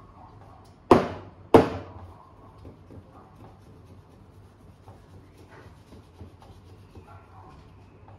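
Stainless steel milk pitcher knocked twice on the counter, two sharp ringing knocks about two-thirds of a second apart, to settle the steamed milk and burst its large bubbles before pouring. After that come faint handling sounds of the cup and pitcher.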